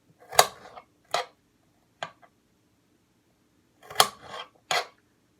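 Kitchen knife striking a cutting board while dicing potatoes: sharp knocks with short scraping tails, three about a second apart, then two more close together near the end.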